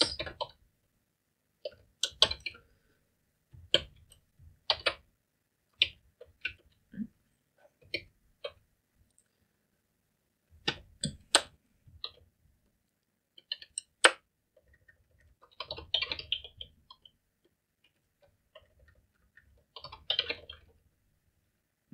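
Computer keyboard typing: scattered keystrokes in short clusters, with pauses of a second or two between them.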